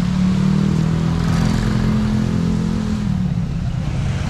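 Traffic passing close on a wet city street: a car and then a motorcycle going by. A steady engine hum fades out about three seconds in, over a constant road rumble.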